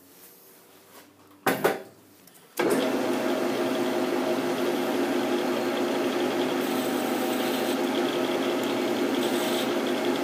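Metal lathe starting up about two and a half seconds in and then running steadily, a constant whine of several tones over a mechanical rush. A short knock comes just before the start.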